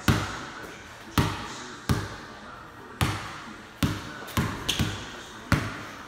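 A basketball being dribbled on the floor: about eight bounces at an uneven pace, each with a short echo.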